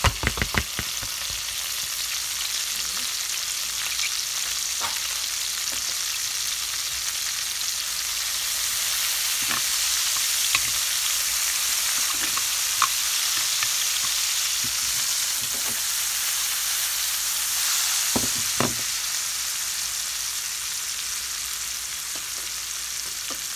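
Chopped bell peppers and onions sizzling steadily in a hot stainless steel skillet, in the browned drippings left from fried sausage. The sizzle grows a little louder in the middle. A few quick knocks come right at the start as the last pieces are tipped in from a plastic bowl, and a few sharp clicks follow later.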